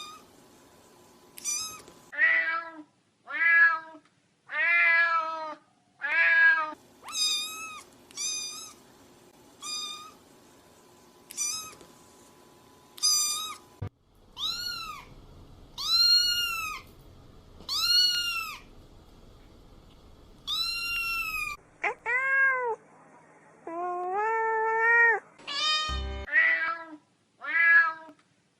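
Kittens and cats meowing, one meow after another: about eighteen short calls, most of them high-pitched kitten mews, with a couple of lower, longer meows a little past the middle. The calls come from several different animals, spliced together with sudden changes in pitch and background.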